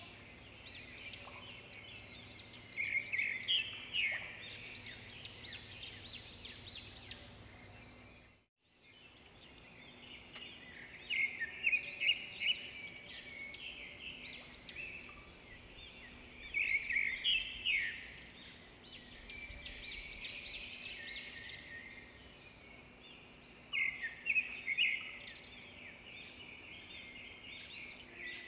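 A chorus of small birds chirping and twittering, with louder bursts of rapid chirps every few seconds. The sound fades out briefly about eight and a half seconds in, then returns.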